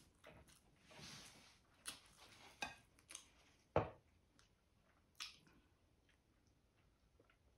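Close-miked eating sounds: wet, squishy chewing and lip smacks on a mouthful of saucy braised chicken adobo, with several sharp mouth clicks, the loudest a little under four seconds in. Fainter in the second half.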